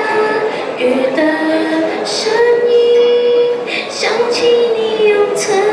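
A girl singing a slow pop song solo into a microphone, amplified through the hall's speakers, holding a long note about two to three seconds in.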